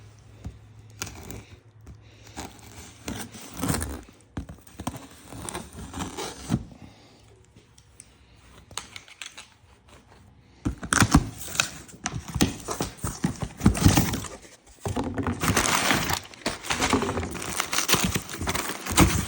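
A cardboard box being opened and unpacked by hand: packing tearing and crinkling, with irregular knocks and clunks as the parts are handled. It gets louder and busier about halfway through.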